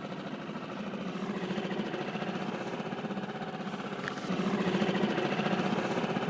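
Small outboard motor running steadily, pushing an inflatable boat along, with a steady hum that gets louder about four seconds in.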